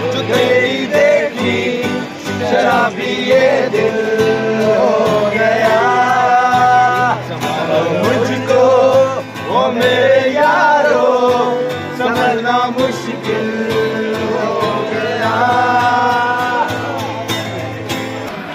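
Acoustic guitar strummed while men sing a song together, with long held notes in the vocal line.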